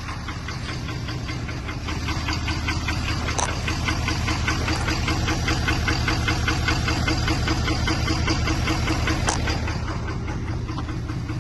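Ford 6.7 Power Stroke turbodiesel V8 idling: a steady low hum with a fast, even diesel clatter.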